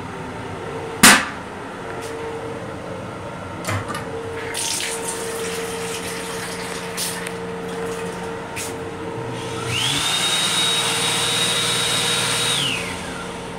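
An M7 train restroom's toilet lid falls shut with a sharp bang about a second in, then the sink faucet runs water into the basin. Near the end the electric hand dryer runs for about three seconds, its motor whine rising to a steady high pitch and then falling as it winds down, over the train's steady hum.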